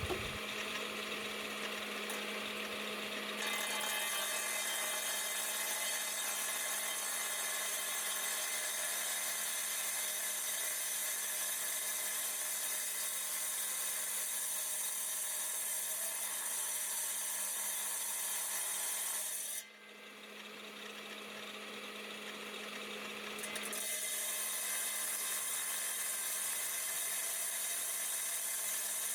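Rock saw running steadily and cutting through an agate: a constant motor hum under a grinding hiss that grows louder a few seconds in as the blade bites into the stone, fades out for a few seconds about two-thirds of the way through, then resumes.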